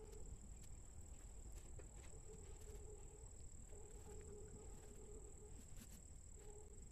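Near silence: soft rustles and a few faint ticks from cotton fabric being handled as a drawstring is worked through a casing with a safety pin, over a steady faint high-pitched whine.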